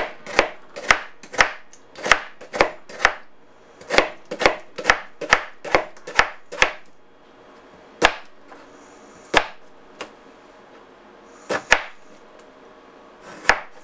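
Chef's knife slicing a cucumber into thin rounds, each stroke knocking on the cutting board. The chops come in a quick run of about two a second for roughly the first half, then a few scattered ones.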